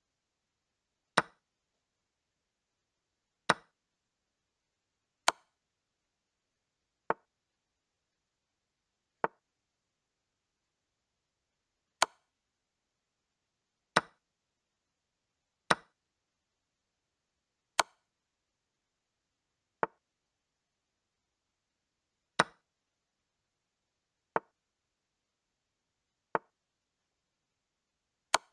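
Chess board move sound effects: a short wooden click as each piece is moved, about one every two seconds, fourteen in all. The louder clicks fall on the captures and checks, and the softer ones on quiet moves.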